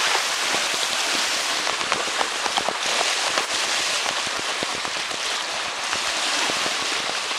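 Gloved hand mixing whole thawed krill in a plastic bait bucket, a wet crackling and squelching played at three times speed so it runs together into a dense stream of fine clicks.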